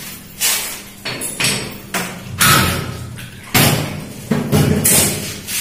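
About nine irregular hard knocks and bangs from workers fitting a toilet and washbasin cabinet, each ringing briefly in a tiled bathroom.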